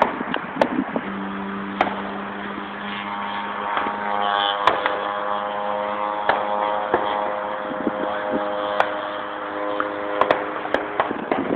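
Radio-controlled model airplane engine running at a steady, unchanging pitch, setting in about a second in, with scattered clicks over it.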